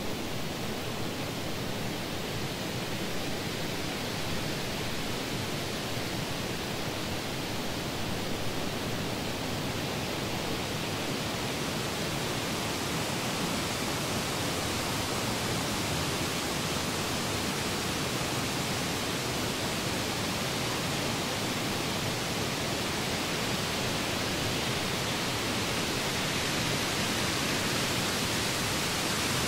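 Steady, even hiss with no separate events, growing slightly louder toward the end.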